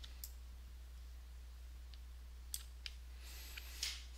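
A few faint computer mouse clicks, spaced irregularly, over a steady low hum.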